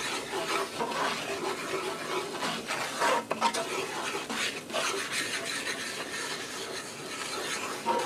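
Wooden spoon stirring and scraping a thick flour-and-grease roux across the bottom of a cast iron skillet: continuous rough scraping as the roux cooks on low to lose its raw flour taste before the milk goes in for sawmill gravy.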